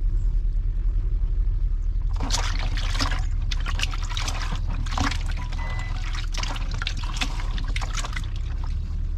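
Liquid pouring and splashing in irregular spurts, starting about two seconds in, over a steady low hum.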